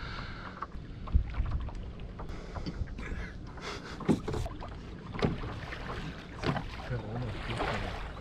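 Wind rumbling on the microphone, with scattered knocks and clatter as fishing gear is handled in a small boat.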